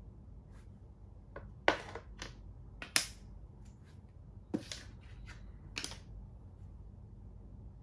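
Thai chess (makruk) pieces knocking and clicking as they are moved and set down on the board and captured pieces are stacked at its edge: about a dozen short, sharp clicks in irregular clusters, two of them loud near the start.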